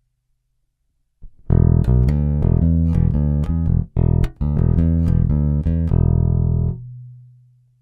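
Cort Space 5 headless five-string electric bass played solo in slap style. After about a second of quiet comes a quick run of sharp, percussive slapped and popped notes with a couple of short breaks. It ends on a held low note that rings and fades.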